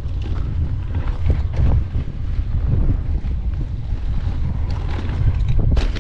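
Wind buffeting the microphone while a mountain bike rides over a rough dirt track, with rattles and knocks from the bike over bumps and a louder clatter near the end.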